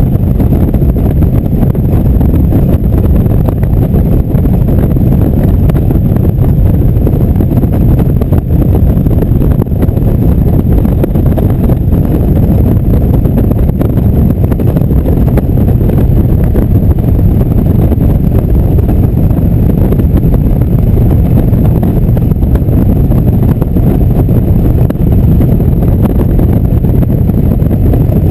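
Indian motorcycle cruising at a steady road speed: a continuous low engine drone mixed with heavy wind rush on the microphone.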